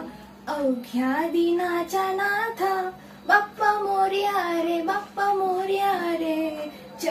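A young woman singing solo without accompaniment, holding long notes and sliding between pitches in several phrases with short breath pauses between them.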